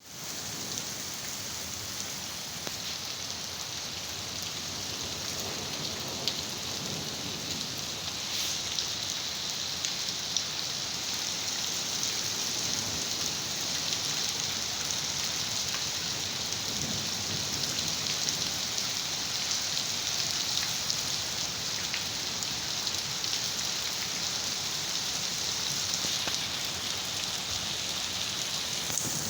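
Steady rain falling on surfaces: a continuous hiss with a few scattered louder drop ticks, growing slightly heavier about a third of the way in.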